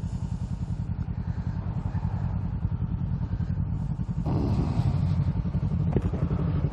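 Parallel-twin sport motorcycle engine running under way, picked up on a helmet microphone with wind rush over it; it gets louder about four seconds in.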